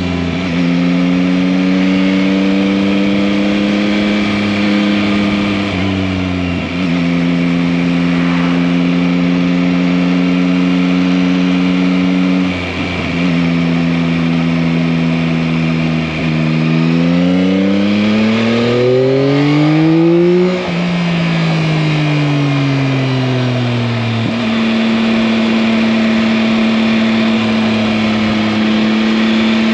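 2021 Yamaha MT-09's 890 cc inline three-cylinder engine under way: it holds steady speeds with short dips where gears change, rises in pitch for about three seconds about two-thirds through as the bike accelerates, then winds back down and settles to a steady run.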